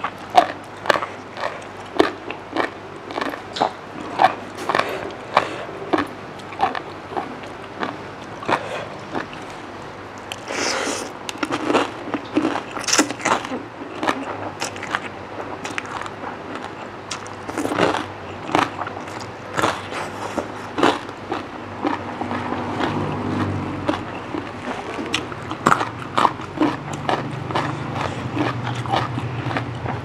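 Close-miked eating sounds: wet chewing and smacking with a steady run of sharp mouth clicks, and brief slurps as rice noodles are sucked in, from someone eating spicy papaya salad with fermented rice noodles and seafood.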